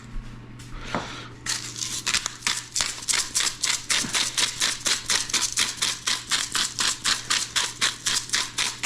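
Hand-twisted spice grinder grinding seasoning, a quick even run of sharp ratcheting scrapes at about five a second, starting about a second and a half in.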